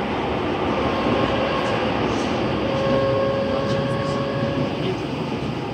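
Running noise of a Nagoya Municipal Subway N3000 series train heard inside the passenger car: a steady rumble of wheels on rail. About halfway through, a faint steady tone joins it and fades again near the end.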